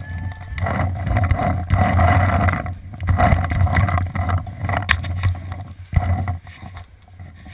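Rumbling wind and handling noise on a body-worn action camera as the wearer runs, in two long stretches with short breaks, with a few sharp clicks and knocks through it.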